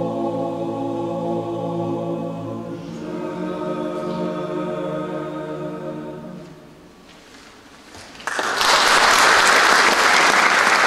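Mixed choir singing the closing chords of an unaccompanied Orthodox psalm setting; the last chord fades out about seven seconds in. About a second later an audience bursts into loud applause.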